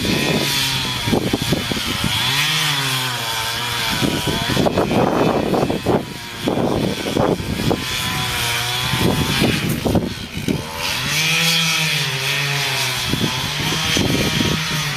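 Chainsaw running hard and cutting wood, its engine pitch wavering and dipping twice under load.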